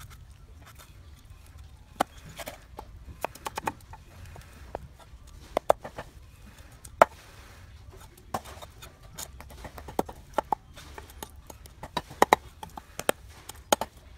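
A series of irregular, sharp knocks and taps, well over a dozen, spaced unevenly, some louder than others.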